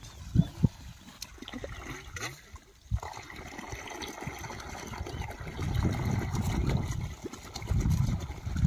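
Water pouring and trickling from a black irrigation hose onto waterlogged soil. Two thumps come just at the start, and a low rumble swells from about halfway through.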